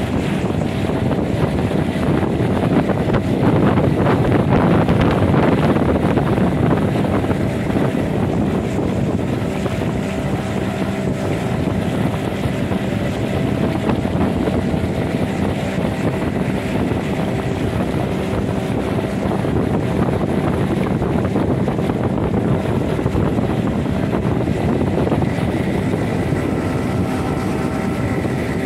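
The motor of a chaldonka, a long wooden river boat, running steadily under way, with wind noise on the microphone.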